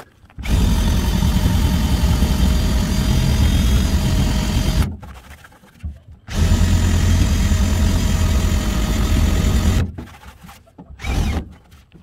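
Drill spinning a rubber decal-eraser wheel against a pickup's painted body panel, stripping pinstripe adhesive. It runs in two long spells of several seconds with a short pause between, then a brief burst near the end. The wheel chatters against the panel because hard pushing has worn it out of round.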